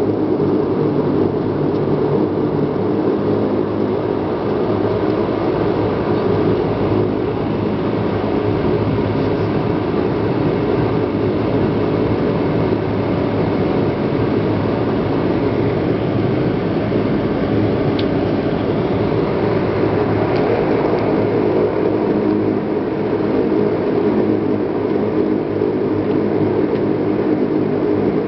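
Steady drone of a Dash-8's turboprop engines and propellers, heard from inside the passenger cabin.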